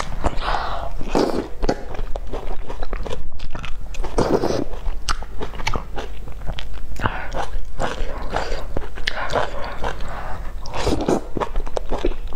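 Close-miked eating: wet chewing with many small mouth clicks, and several longer slurps as noodles are drawn into the mouth.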